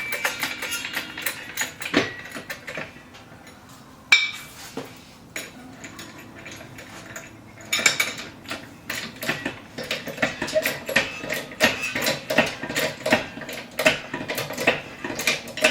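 Metal parts and tools clinking and clattering irregularly, with one sharp metallic knock about four seconds in and a brief ringing note at the start.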